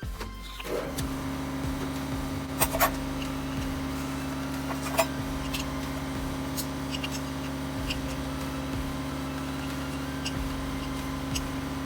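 A steady mechanical hum, with a few sharp metallic clinks: two close together about two and a half seconds in, another about five seconds in, and lighter ticks after.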